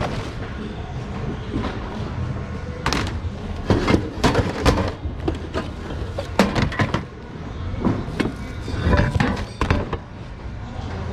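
Irregular knocks and clatter of hard objects being handled and shifted in a bin, loudest in clusters through the middle, over a steady low rumble of background noise.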